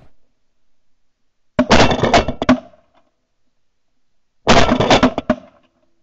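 Two quick volleys of shotgun fire, each a cluster of several overlapping shots lasting about a second, the second coming about three seconds after the first.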